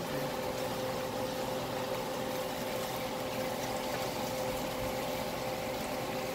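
Thick Hamburger Helper sauce bubbling in a frying pan over a lit gas burner while a metal spoon stirs it. The noise is steady, with a faint steady hum underneath.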